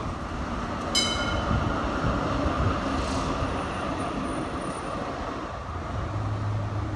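Melbourne electric trams running along a city street: a steady rolling rumble mixed with traffic noise. About a second in there is a single short metallic ding, and a low steady hum comes in near the end.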